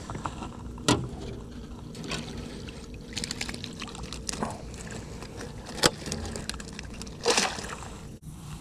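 Wire fish basket handled over the side of an aluminium boat as a caught sunfish goes in: a few sharp metal clinks and knocks, the loudest near the end, with water sloshing and dripping as the basket is lifted and lowered back in.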